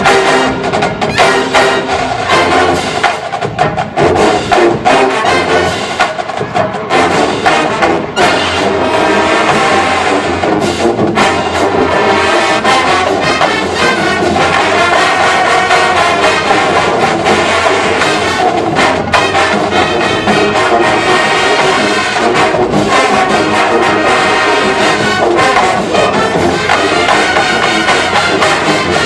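Loud brass-led band music with percussion, part of a spy-themed show.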